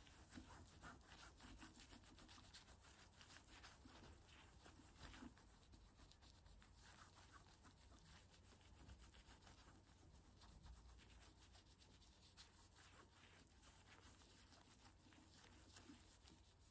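Faint rubbing and small handling clicks from a microfiber cleaning cloth wiping the glass and metal of an iPhone camera bump.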